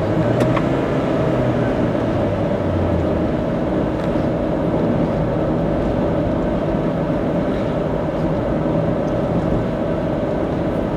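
Steady tyre and engine noise of a car cruising on an expressway, heard from inside the car: an even rumble with a low hum, unchanging throughout.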